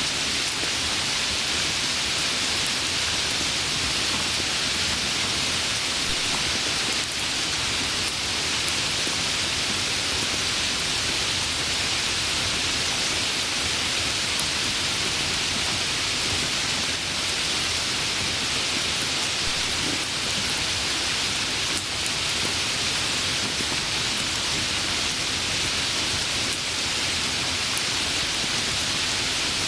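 Steady rainfall, an even hiss of rain with faint scattered drop ticks.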